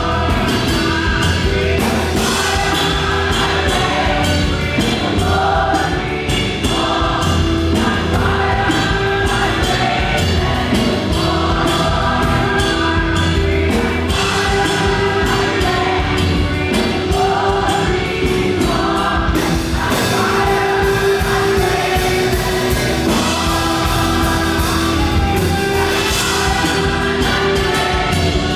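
Live fast gospel worship music: a choir singing over a band with a steady, fast beat.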